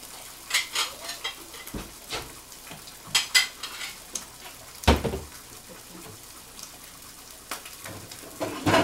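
Metal utensils and cookware clinking and knocking against frying pans, in short clusters with one heavier knock near the middle, over faint sizzling of turkey bacon and an omelet frying.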